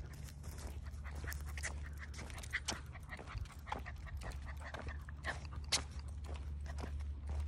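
Dog panting quickly, with scattered irregular light clicks and a steady low rumble underneath.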